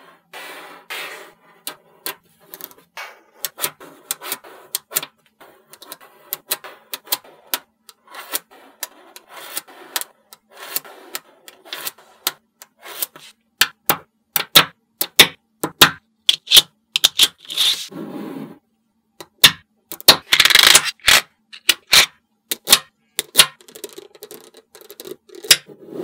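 Small magnetic balls clicking sharply as they snap together, with rattling and scraping as strips of balls are laid and slid into place on the table. The clicks come irregularly and grow busier and louder in the second half.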